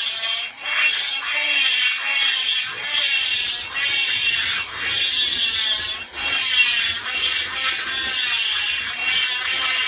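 Small hand-held rotary grinder cutting metal in the exhaust port of a McCulloch S550 chainsaw cylinder, opening the port up. Its high whine wavers in pitch under load and dips briefly a few times as the bit comes off the metal.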